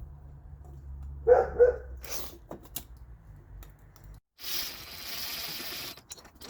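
A dog barks twice in quick succession, a little over a second in, followed by a few sharp clicks. Near the middle the low background hum stops abruptly and a steady hiss takes over.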